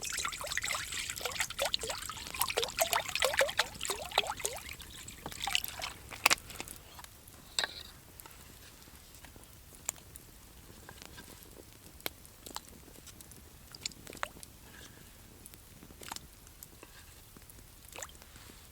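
Liquid being poured, a dense gurgling run for about five seconds, then a few scattered drips and small clicks.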